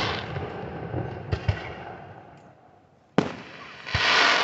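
Aerial fireworks bursting overhead. A bang fades out, two small pops follow about a second and a half in, and another sharp bang comes near the end, followed by a swelling hiss.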